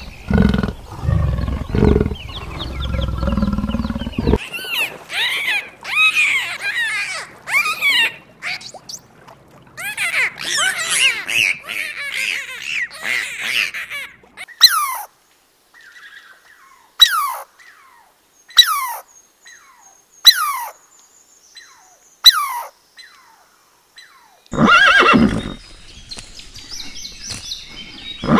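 A run of animal calls: a deep growling call for about four seconds, then a dolphin's rising-and-falling whistles and squeals, followed by five sharp whistles falling steeply in pitch about two seconds apart. Near the end a horse whinnies.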